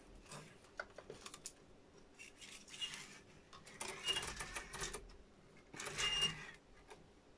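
Plastic tape reels being handled and turned by hand while tape is threaded onto a reel-to-reel tape recorder: scattered light clicks and rattles, with short bursts of rustling about two, four and six seconds in.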